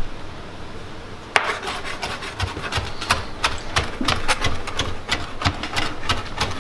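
Knife chopping rosemary on a plastic cutting board: rapid sharp knocks of the blade, several a second, starting about a second and a half in.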